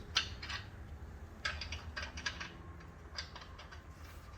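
Irregular light metal clicks and taps of steel nuts and bolts being handled and threaded on by hand, over a steady low hum.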